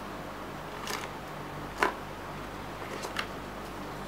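Handling noise from a small unpowered pump and its cables being turned over in the hands: three light clicks, the middle one the loudest, over a steady low hum.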